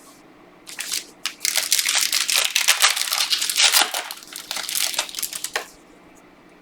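Plastic wrapper of a football trading-card pack crinkling and tearing as it is ripped open and crumpled, a dense crackle lasting about five seconds.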